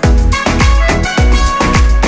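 Loud electronic dance music with a deep kick drum beating about twice a second, each kick dropping in pitch, under a synth melody.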